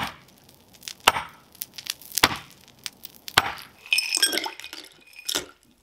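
A pickaxe chopping into driveway ice: four sharp blows about a second apart. Near the end, chunks of ice clink into a drinking glass.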